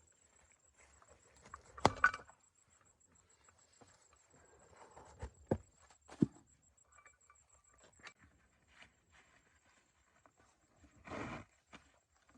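Scattered sharp knocks and taps: two close together about two seconds in, a few more around five to six seconds, and a short scraping burst near the end.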